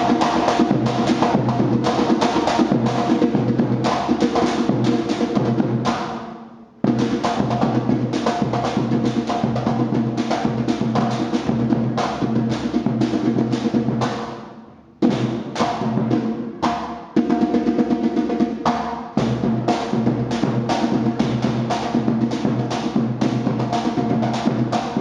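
Afro-Brazilian drumming by a live percussion group, a fast steady rhythm of many drum strokes. It fades away twice, about six and fourteen seconds in, and comes straight back each time.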